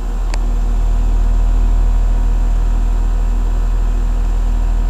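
Bryant Evolution 16 SEER two-stage heat pump outdoor unit running in cooling mode: a steady low hum of compressor and condenser fan, growing louder over the first second. A brief faint click comes just after the start.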